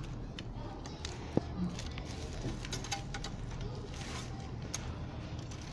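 Handling noise from working inside an opened car stereo head unit: faint rustles and small scattered clicks as fingers move thin cables and tape over the circuit board, over a steady low hum. One sharper click comes about a second and a half in.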